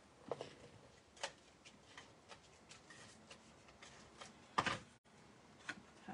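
Light taps and rustles of card stock being handled and pressed down on a table, with one louder, brief paper rustle about four and a half seconds in.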